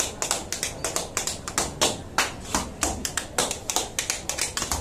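Tap shoes striking the floor in a tap-dance improvisation: a fast, uneven run of sharp taps, several a second, some landing harder than others.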